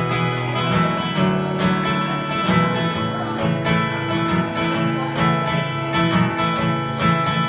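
Acoustic guitar strummed in a steady rhythm, playing the instrumental intro of a country song before the vocals come in.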